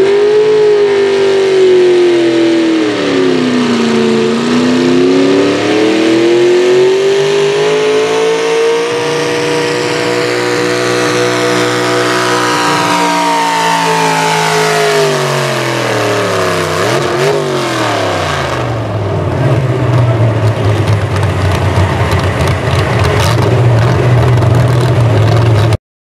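Modified pulling tractor's engine at full throttle dragging the weight sled: the engine note climbs, sags briefly about four seconds in, then climbs again and holds high. Around fourteen seconds in it falls away steeply to a low, rough rumble as the pull ends, and the sound cuts off suddenly near the end.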